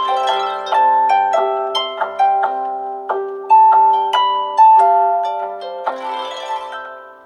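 Samsung Galaxy S6 edge+ ringtone: a harp-like melody of quick plucked notes over a repeating low note, fading out near the end.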